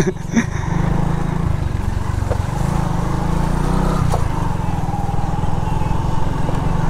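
Hero Honda Super Splendor's single-cylinder four-stroke engine running steadily as the motorcycle rides along.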